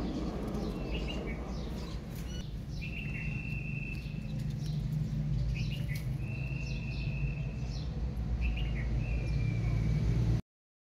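Small birds chirping in short rising calls, with a few held whistled notes, over a steady low rumble. The sound drops out to silence shortly before the end.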